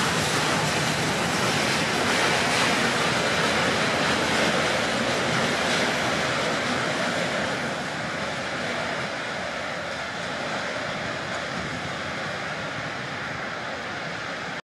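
EN57 electric multiple unit rolling on the rails, a steady running noise that slowly fades, then cuts off abruptly near the end.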